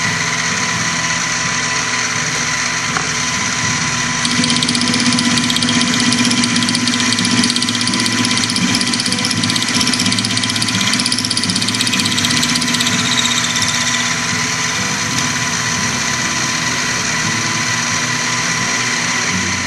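MicroLux mini milling machine running with a 3/8-inch end mill cutting a steel crank blank: a steady motor whine with grinding cutting noise. The cutting grows louder and harsher from about four seconds in for roughly ten seconds as the table is fed, then eases back.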